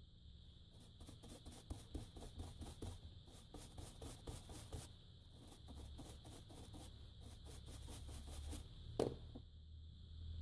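A brush scrubbing a TV's T-con circuit board in rapid back-and-forth strokes, cleaning around a surface-mount chip, then a single sharp knock near the end.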